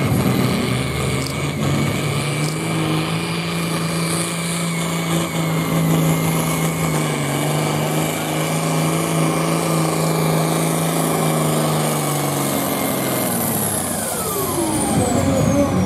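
John Deere diesel farm tractor pulling a weight-transfer sled at full throttle, its engine running at a steady pitch under heavy load with a steady high turbocharger whine. About 13 seconds in the engine is throttled back, and its note and the turbo whine both fall away together as the pull ends.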